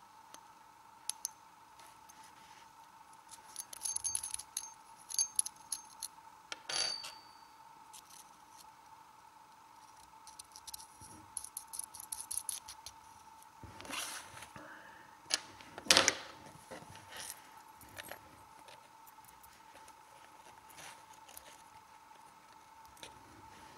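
Metal body of a Trustfire F22 LED flashlight being handled and twisted apart: scattered light metallic clicks, taps and clinks, with a louder knock about two-thirds of the way through.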